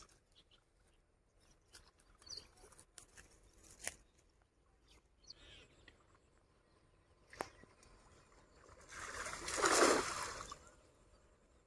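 Shallow water sloshing and splashing as fish are caught by hand in a drying pool. A few sharp knocks are scattered through it, and a louder splash lasting about a second and a half comes near the end.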